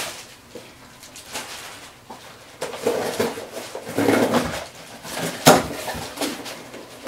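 A small cardboard box being opened by hand: scraping and rustling of cardboard as the flaps are worked open, with one sharper crack late on.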